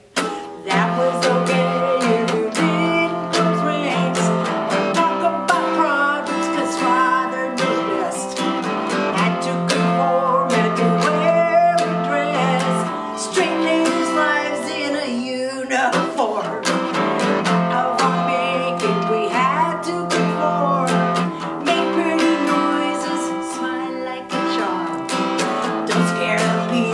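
Acoustic guitar strummed steadily as the accompaniment to a song, with a brief break about sixteen seconds in.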